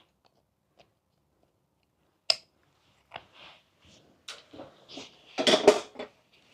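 Hand tools and a flexible PVC corner bead being handled on a stepladder: a sharp click about two seconds in, then a run of short rustles and clatters, loudest near the end.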